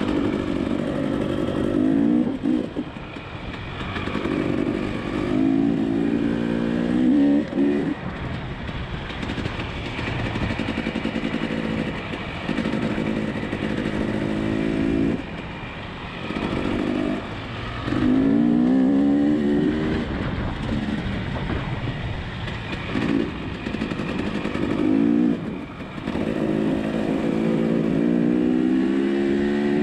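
Dirt bike engine ridden along a bush trail, revving up and easing off again and again as the rider works the throttle through the gears; the pitch climbs in repeated rises, some long, with short drops between.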